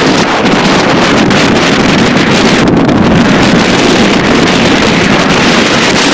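Steady wind rush buffeting the microphone of a camera on a moving motorcycle, with the motorcycle's engine and tyre noise underneath.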